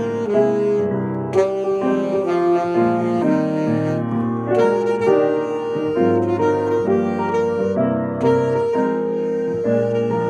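A saxophone playing a melody of long held notes, accompanied by chords on a grand piano.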